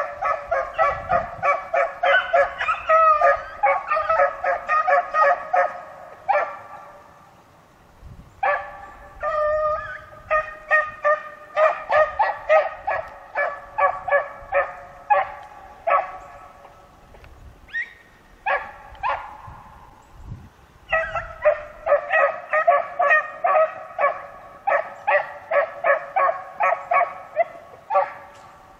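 Beagles baying while trailing a rabbit's scent: runs of rapid, ringing bays, several a second, that break off twice for a couple of seconds before picking up again.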